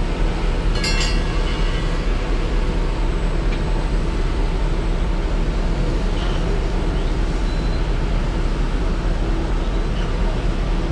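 Steady rumble and rattle of a rail vehicle running, most likely one of the Panama Canal's electric towing locomotives ("mules") on its track beside the lock, with a brief high metallic screech about a second in.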